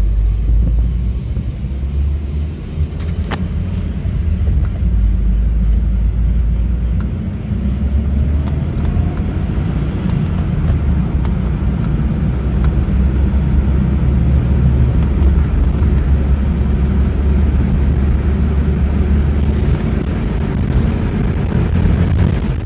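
Audi A4 1.8T's turbocharged four-cylinder engine, with a gutted catalytic converter, running at about 2,000 rpm while the car drives, heard from inside the cabin as a steady low drone with road rumble.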